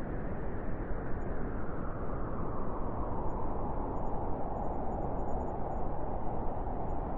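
Steady rush of strong wind, deep and dense with only a little hiss on top, holding at an even strength.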